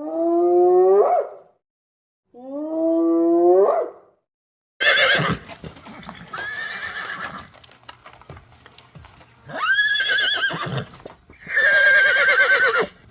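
An animal calling: two drawn-out calls rising in pitch in the first four seconds, then after a burst of rough noise, two loud, high, quavering calls near the end.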